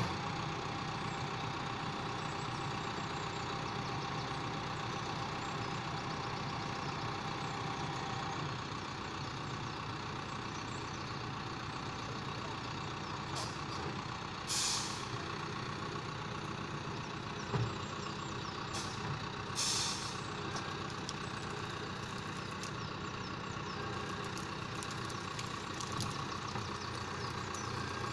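John Deere 6115M tractor's four-cylinder diesel running steadily, with two short hisses about halfway through.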